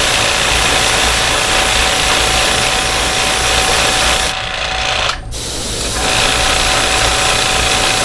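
Iwata Eclipse airbrush hissing steadily as it sprays paint, with a small motor humming underneath. The spray stops for about a second a little past four seconds in, then starts again.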